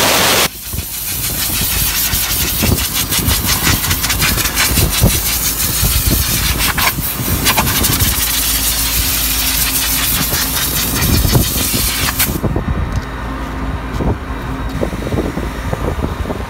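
Nitrogen hissing from a blow nozzle against an air-conditioning condenser coil, blowing dust out of the fins to bring down high head pressure. It starts with a loud blast that ends about half a second in, then hisses steadily and cuts off suddenly about twelve seconds in. The condenser unit hums underneath throughout.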